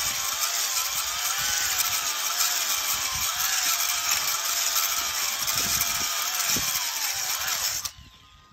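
Electric drill spinning a spring-loaded three-stone cylinder hone up and down inside a gasoline-wetted cylinder bore of an Audi 2.0 engine block, the stones grinding the bore wall to break the glaze. The drill's whine wavers in pitch over the grinding, then stops abruptly about a second before the end.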